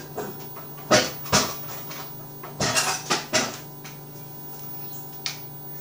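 Kitchen clatter: sharp knocks and clinks of bowls and utensils being handled. There are two loud knocks about a second in, a cluster around three seconds, and a last one near the end, over a faint steady hum.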